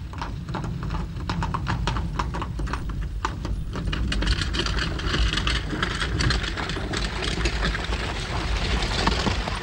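Horse's hooves clip-clopping steadily as it draws a carriage, over a low steady rumble.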